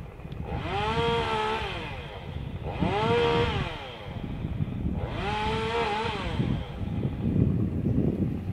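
A small engine revved up and back down three times, each rev rising and falling in pitch over about a second and a half, over a steady low rumble.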